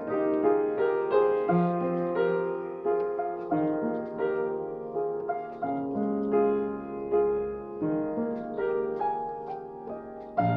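Piano playing a flowing melody over chords: note after note struck and left to ring, at a steady, moderate pace.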